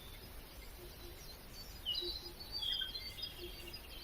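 Small birds chirping and tweeting faintly, with short high calls clustered about two seconds in and again around three seconds in.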